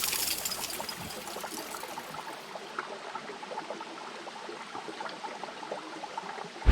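Water from a small stream trickling and gurgling, with many small irregular drips and splashes.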